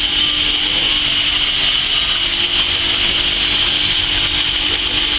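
Fish-scaling machine running: a steady mechanical rasping and whirring over a constant hum.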